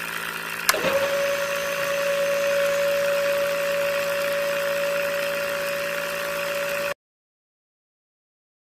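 A small electric motor running with a steady hum; after a click about a second in, a steady whine sets in and holds. The sound cuts off abruptly about two seconds before the end.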